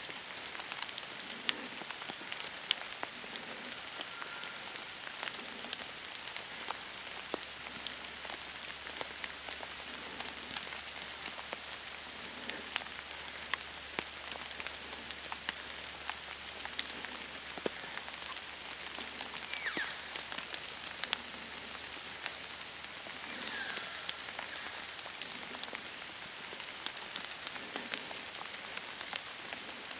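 Light rain pattering: many small, irregular ticks over a steady hiss.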